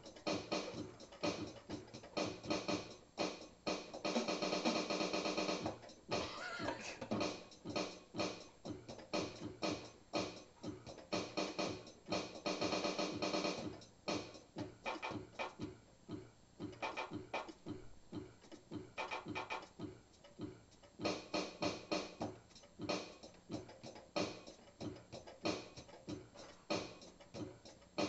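Electronic keyboard played with both hands: a fast run of quick notes, broken by held chords about four seconds in and again about twelve seconds in.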